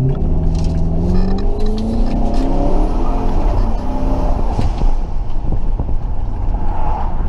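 2005 Dodge Magnum's engine pulling under acceleration while driving, its pitch climbing over the first few seconds in steps, over steady road noise.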